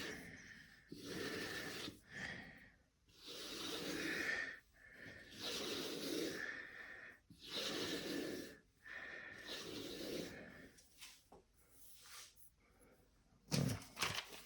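Sharpening stone of a TSProf Kadet guided sharpener stroking along a pocket knife's blade edge, a steady run of rasping strokes at a little under one per second.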